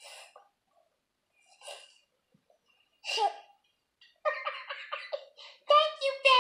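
High-pitched laughter: a few soft breathy sounds at first, then from about four seconds in a rapid string of laughing syllables that grows loudest near the end.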